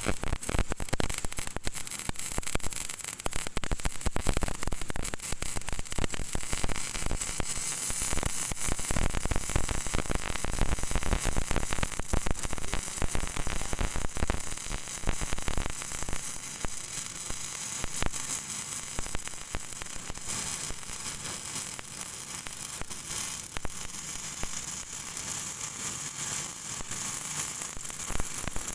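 MIG welding arc crackling and sizzling steadily. The rapid crackle is heaviest in the first half and thins out somewhat about halfway through.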